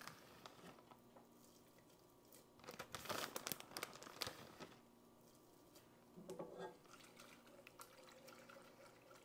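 Plastic bag of shredded mozzarella crinkling for about two seconds, starting a few seconds in, as cheese is shaken out of it, then a shorter, softer rustle a few seconds later, over faint room tone.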